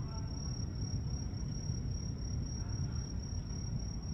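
An insect, such as a cricket, trilling steadily at one high pitch, over a constant low rumble of background noise.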